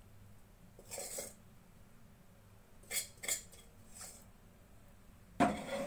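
A spoon scraping and knocking against a cooking pot while masala is spooned onto a layer of biryani rice: a few short scrapes, then a louder clatter near the end.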